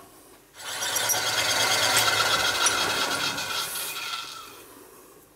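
Small metal lathe switched on, running with its chuck spinning a small steel air-hose coupling, then switched off and winding down. The sound starts about half a second in and fades away over the last second or so.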